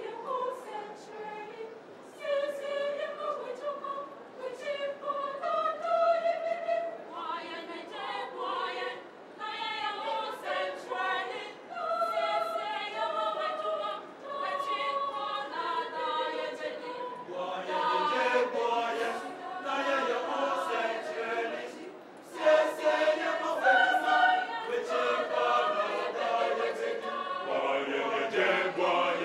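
Mixed choir of women and men singing together in sung phrases with short breaks between them, growing fuller and louder in the last third.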